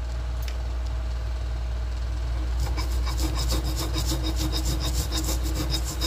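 Stone pestle grinding garlic, candlenut, coriander seed and salt on a stone mortar (Indonesian cobek and ulekan), a gritty rasping in quick regular strokes that starts about two and a half seconds in. A steady low hum runs underneath.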